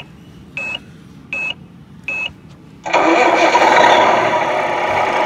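The Tamiya Grand Hauler R/C semi's onboard sound unit playing its engine-start sequence: four short beeps about three-quarters of a second apart, then a loud simulated truck engine starting about three seconds in and running steadily.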